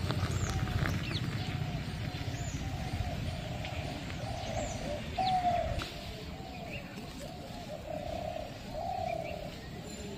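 Doves cooing over and over, short arched coos repeating throughout, with a few high bird chirps above them.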